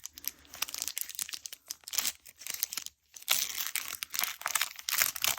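Foil booster-pack wrapper crinkling and crackling as it is handled, in dense runs of sharp crackles with a short pause about three seconds in.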